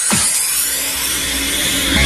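Electronic dance music at a break in the beat: the kick drum stops just after the start, leaving a sustained hissing noise sweep over a held low synth chord.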